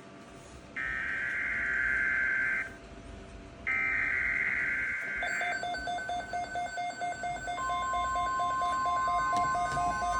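Emergency Alert System SAME header: two shrill digital data bursts, each about two seconds long and a second apart. From about five seconds in, a pattern of repeating electronic beeps starts, and about two and a half seconds later a steady alert tone near 1 kHz, the weather-radio warning alarm tone, joins it.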